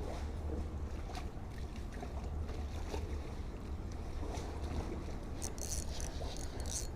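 Steady low rumble and hiss of a small boat out on the water, with faint scattered knocks and a few short high rustles near the end.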